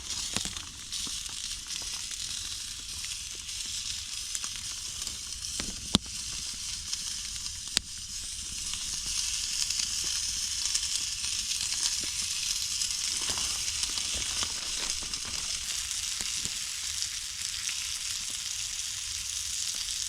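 Bacon-wrapped venison steak and onions sizzling in a very hot cast iron pan, a steady frying hiss with two sharp pops about six and eight seconds in.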